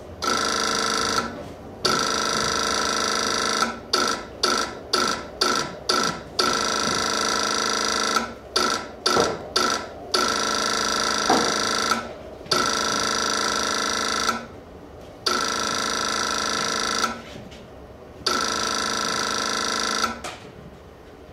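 Electric buzzer sounded over and over: long buzzes of one to two seconds with short gaps, broken by two runs of quick short buzzes, one a few seconds in and one about halfway through.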